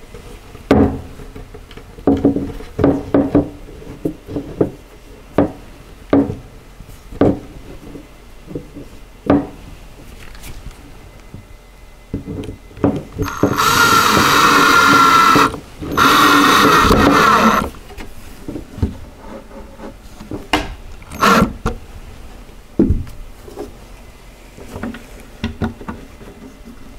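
Particleboard panels knocking and clattering as a middle divider is fitted into place. About halfway through, a cordless drill drives screws into it in two steady runs of about two seconds each, with more scattered knocks afterward.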